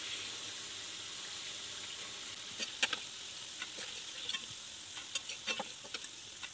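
Hot oil sizzling steadily as battered egg pieces deep-fry in a steel kadai. A slotted spoon knocks against the pan a few times, once sharply near the middle and several times toward the end, as the fried pieces are lifted out.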